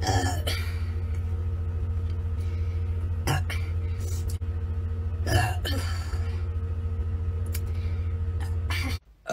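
A steady low hum with three brief throat sounds over it: about a third of a second in, at about three seconds and at about five and a half seconds. The hum cuts off suddenly near the end.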